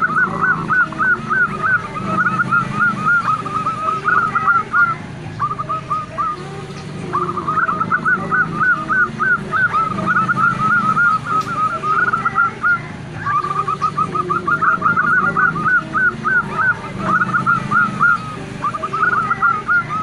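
Female zebra dove calling in rapid runs of short, rising notes, several a second, in bouts of a few seconds with brief pauses between them. This is the excited breeding-condition call that keepers use as a lure to draw males.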